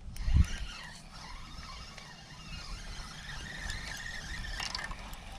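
A low thump about half a second in, then a boat's electric trolling motor whirring with a wavering high whine.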